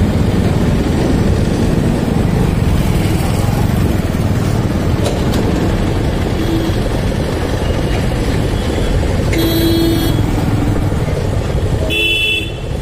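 Motorcycle riding through town traffic: a steady low rumble of engine and road noise, with short vehicle horn toots twice in the last few seconds.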